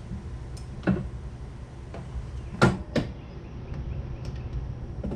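A few sharp metal clunks and clicks as hand tools and parts are handled while the carburetor's 12 mm mounting nuts come off, the loudest about two and a half seconds in, over a steady low hum.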